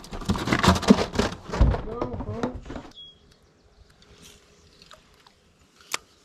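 A person talking for about three seconds, then it cuts to a quiet background with a faint steady hum and a single sharp click near the end.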